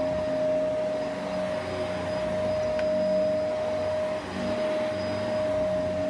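Shark Rotator Lift-Away Professional upright vacuum cleaner running on a rug: a steady motor whine over the rush of suction as the head is pushed across the carpet pile.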